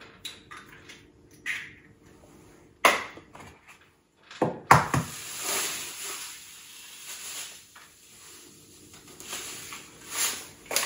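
A few sharp knocks, then a steady rustling hiss for about six seconds as brown cane sugar is poured from a paper bag into a stand mixer's bowl.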